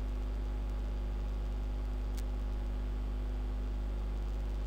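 Steady low electrical hum with faint hiss, the background noise of the recording, with one faint click about two seconds in.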